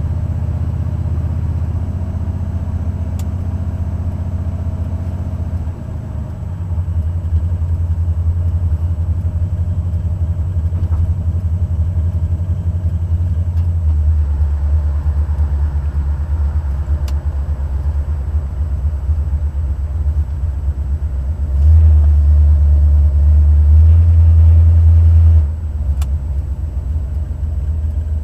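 Buick Stage 1 455 V8 running as the car is driven, a steady low exhaust rumble that shifts in pitch a few times and swells louder for a few seconds about three quarters of the way through. The owner suspects the driver-side valvetrain noise is a lifter not pumping up or a pushrod problem.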